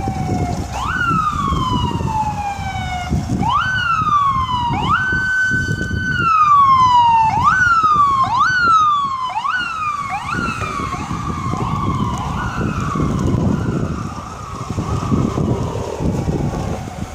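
Emergency vehicle siren wailing: the pitch jumps up quickly and slides slowly down, holds high for a moment, then sweeps up and down faster and faster before trailing off, over a loud low rumble.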